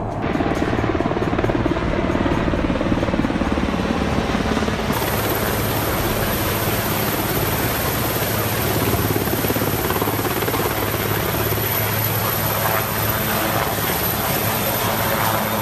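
Military helicopters flying overhead, with steady rotor and turbine engine noise. About five seconds in this gives way to a Sea King helicopter landing close by: loud, steady rotor and engine noise with the rush of rotor wash.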